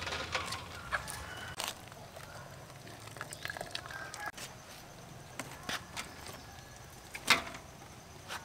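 Chickens clucking in the background, with scattered short knocks and clinks and one sharper knock about seven seconds in.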